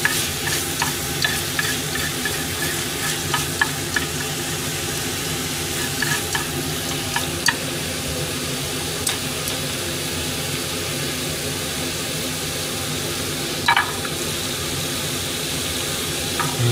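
Sliced beef sizzling steadily in a frying pan, with wooden chopsticks clicking and scraping against the pan in the first several seconds as the meat is stirred. A louder clatter comes near the end.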